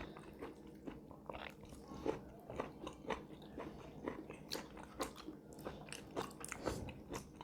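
A person chewing and biting a mouthful of stuffed karela (bitter gourd) close to the microphone: a quiet string of short, irregular mouth clicks.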